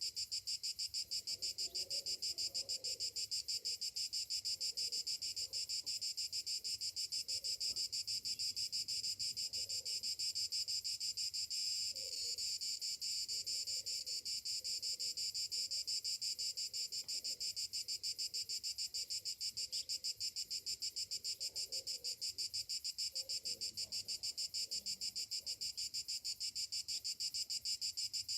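Cicadas calling in chorus: a steady, high-pitched buzz that pulses rapidly and evenly without a break.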